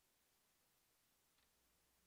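Near silence: room tone, with one very faint click about one and a half seconds in.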